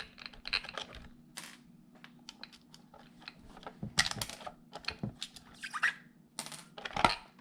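Irregular plastic clicks and light rattles from handling the Hosim Q903 RC truck as its body clips are pulled and the smoked polycarbonate body is lifted off the chassis.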